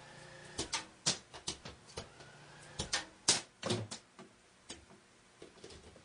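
Irregular sharp clicks and ticks, more than a dozen, scattered through a faint steady low hum.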